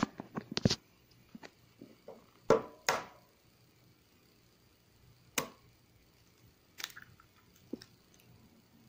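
Raw eggs being cracked open over a shaker cup: a handful of short taps and clicks of shell, the loudest pair about two and a half seconds in, then a few single sharp clicks later on.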